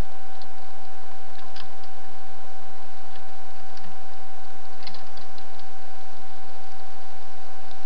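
Trail camera's own recording noise: a steady hiss with a constant high electronic whine, broken by scattered faint clicks and ticks.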